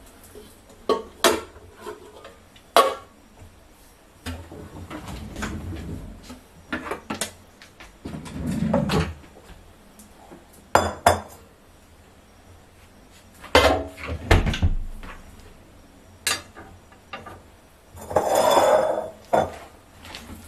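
Kitchen bowls and utensils being handled on a counter: sharp clinks and knocks of ceramic and glass scattered through, with a few longer, duller handling noises in between.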